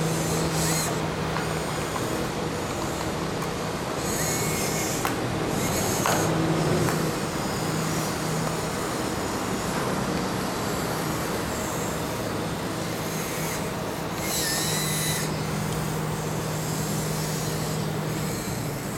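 Heavy machinery's diesel engine running with a steady low drone, with a few short bursts of high hissing on top.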